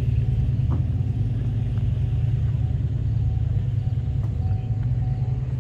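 Car engine idling steadily.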